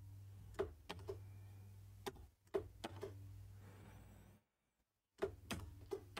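Computer keyboard keystrokes and clicks, scattered and soft, over a faint steady low hum, as a hex colour code is typed in. The sound cuts out completely for under a second just after the middle.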